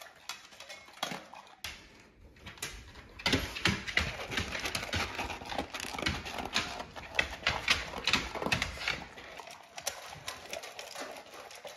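Bluetick coonhounds eating small dry kibble from stainless steel bowls: rapid crunching and kibble clicking and rattling against the metal. It is sparse at first and densest and loudest from about three to nine seconds in.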